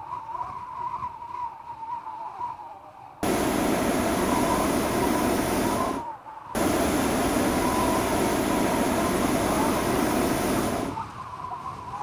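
Hot air balloon propane burner firing in two blasts: a loud, even roar starts suddenly about three seconds in, stops for half a second, then runs about four seconds more before cutting off.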